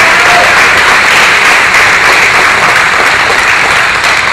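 An audience applauding loudly.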